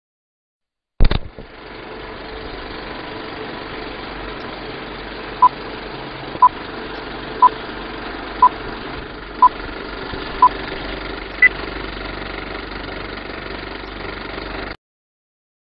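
Film countdown leader sound effect: a sharp click, then a steady film-projector whirr with crackle. Over it come six short beeps one second apart and a seventh, higher beep, before the sound cuts off suddenly.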